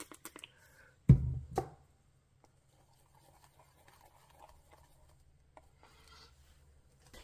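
Two dull thuds about a second in, as a plastic spray bottle is set down on the work table, then faint soft scrubbing as a flat paintbrush picks up paint from a dark watercolour half pan.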